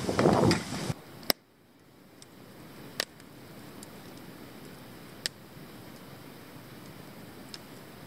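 Wood campfire crackling quietly, with a single sharp pop every two seconds or so. A louder rushing noise fills the first second and cuts off abruptly.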